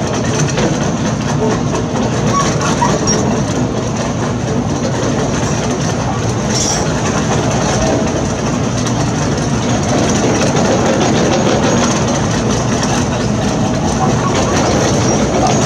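Heavy construction machinery working: a diesel engine running steadily under dense, continuous rattling and clanking.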